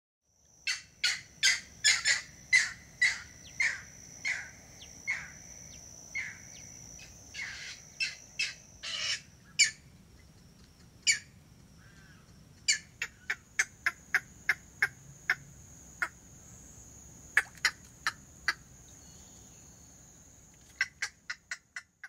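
Green heron calling: a string of short, sharp calls, about two a second at first, then in quicker runs later on. A steady high-pitched buzz runs behind them.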